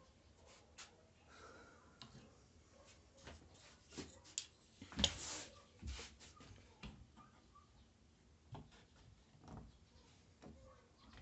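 Scattered light clicks and taps of small parts and tools being handled on a workbench, with a louder knock about five seconds in.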